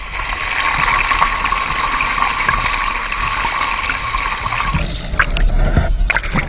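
Pond water pouring and gurgling into the mouth of a submerged plastic drain pipe, a steady rush that eases about five seconds in. The pipe mouth sits below the water surface, so the pond drains away through it and its level drops.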